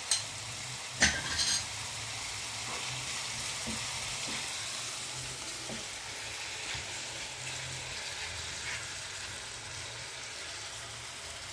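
Grated onions and garlic frying in oil in a pan, with a steady sizzle. About a second in there is a brief clatter of sharp clicks.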